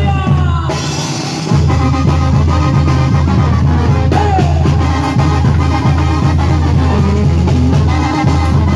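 A live band with a horn section and drum kit playing loudly through a PA, with a sung line at the very start. About a second in, the bass and drums drop out briefly before the full band comes back in.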